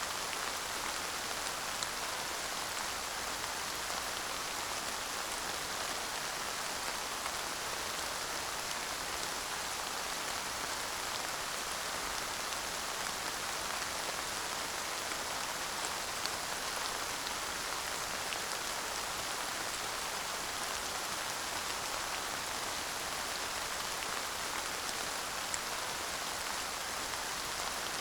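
Steady light rain falling, an even hiss with a few separate drops ticking now and then; no thunder.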